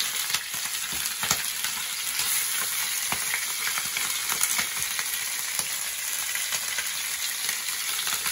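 Raw chicken pieces sizzling in hot olive oil in a paella pan. A steady hiss with frequent small pops and crackles as the meat starts to sear.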